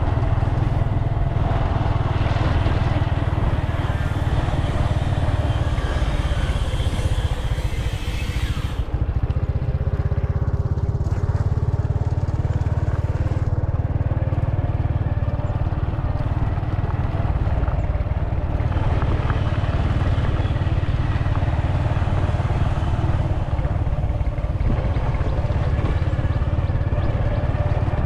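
Motorcycle running steadily while being ridden along the road, with an even engine and road noise.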